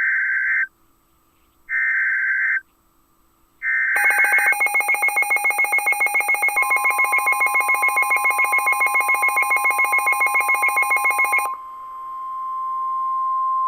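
NOAA Weather Radio Emergency Alert System tones announcing a river flood warning. It opens with three short screeching digital SAME header bursts about a second apart. A harsh, rapidly pulsing buzz follows for about seven seconds. Partway through it the steady 1050 Hz warning alarm tone comes in and keeps sounding after the buzz stops.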